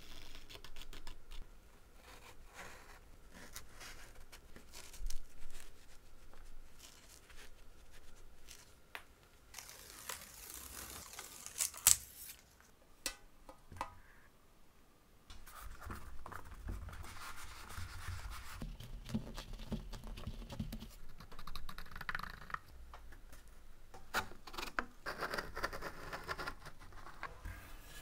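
Hands working green felt onto metal game parts: scratchy rubbing and scraping of felt against metal, with scattered taps and clicks of handling, the sharpest about twelve seconds in. From about halfway on the rubbing is denser and more continuous as the felt is pressed and fitted around a round metal disc.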